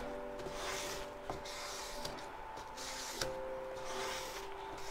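Hands rubbing a plastic sheet over a freshly glued paper decal on a wooden box, pressing it down: a soft rustling scrape that comes and goes in several strokes, with a few small clicks and faint steady tones underneath.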